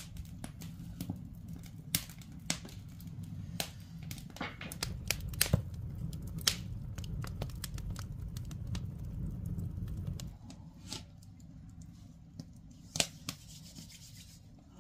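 Wood fire crackling and popping in the firebox of a traditional Korean underfloor-heating stove (agungi), with irregular sharp snaps over a low rumble that drops away about ten seconds in.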